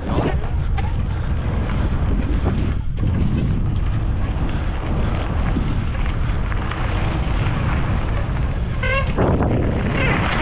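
Wind buffeting the microphone of a mountain biker riding fast down a dirt trail, over the steady rumble of the bike rolling. A short high-pitched tone sounds about nine seconds in.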